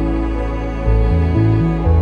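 Slow, sad, new-age-style background music: sustained notes over deep bass notes that change about every half second.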